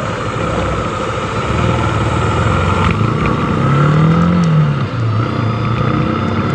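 Motorcycle engine under way, its pitch climbing as it accelerates, dropping briefly about five seconds in as if between gears, then climbing again, over a steady rush of wind and road noise.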